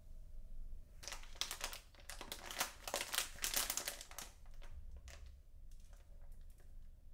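Crinkling and rustling from something being handled up close. It is dense and busy for about three seconds starting a second in, then thins to scattered crackles.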